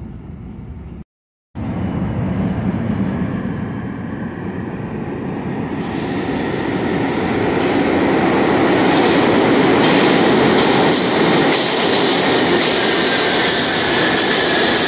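An R68-series New York City subway train approaches and runs past on the track beside the platform. Its rumble and wheel noise build steadily to loud, with a faint wheel squeal on the curved track near the end. A brief silent gap about a second in.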